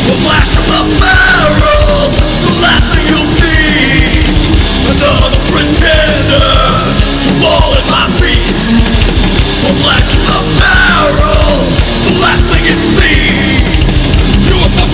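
Loud, aggressive heavy punk-metal song with yelled vocals over a dense band.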